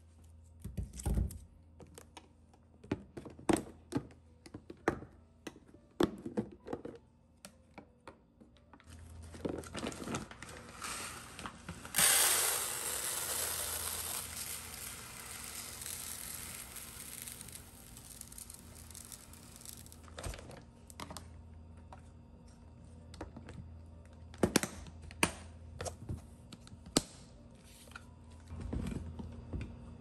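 Uncooked rice grains poured into a plastic rice container: a rushing hiss that starts suddenly about twelve seconds in and fades away over several seconds. Before and after it, scattered clicks and knocks of plastic parts being handled.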